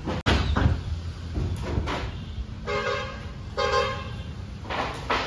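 Vehicle horn honking in a few short toots over a low steady rumble.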